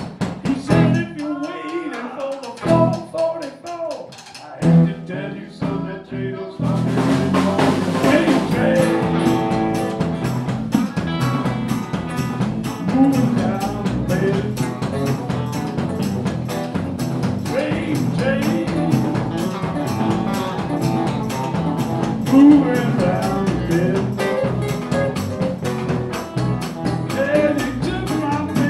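Live blues band playing, electric guitar over a drum kit. The first few seconds are sparse and broken up, then the full band comes in about seven seconds in with a steady, driving drumbeat.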